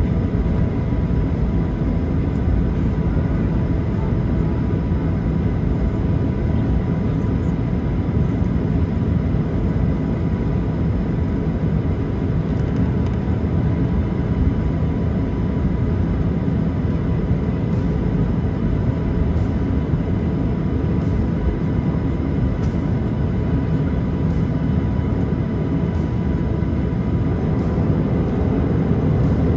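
Jet airliner cabin noise heard from a passenger seat: the steady, even drone of the engines and the airflow, deepest in the low range, with faint steady tones above it.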